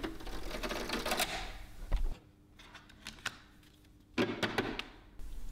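Desktop comb binding machine worked by hand: its lever and the plastic binding comb clacking and rattling as laminated pages are fitted onto the comb teeth, with a knock about two seconds in and a single click a moment later.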